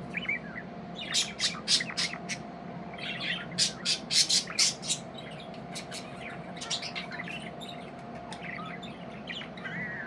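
Budgerigars chirping and squawking in quick runs of short, sharp calls, busiest in the first half and thinning out after. A steady hum runs underneath.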